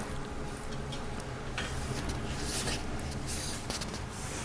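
Oxtail and carrot stew simmering in a stainless steel pan, with scattered soft crackles and pops over a low steady hum.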